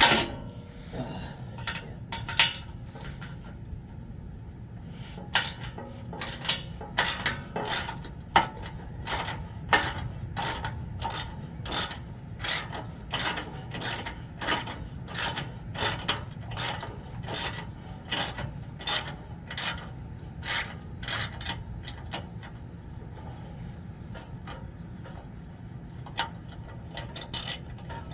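A 3/8-inch hand ratchet with a 12 mm socket clicking as it works a skid-plate bolt loose. The clicks come in a steady run, about one and a half a second, stop for a few seconds near the end, then start again.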